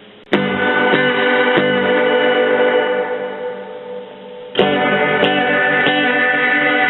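Electric guitar played through a Roland Jazz Chorus amplifier: a chord struck, hit again twice and left to ring down, then a second chord about four and a half seconds in, also struck again and ringing.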